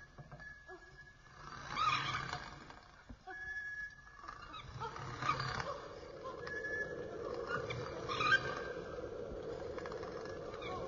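Layered horror sound-effect ambience of a torture chamber: cries swell up every few seconds over a low hum, with short high squeaks, and a steady drone sets in about halfway through.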